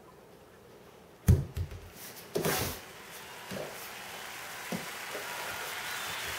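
Knocks and thumps from a Great Dane getting up and moving about on a tile floor. A sharp thump about a second in is the loudest, another follows a second later, then a few lighter knocks over a rising hiss.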